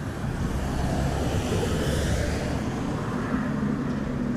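An unseen vehicle running past, its rumble swelling about two seconds in and then easing off, with some wind noise on the microphone.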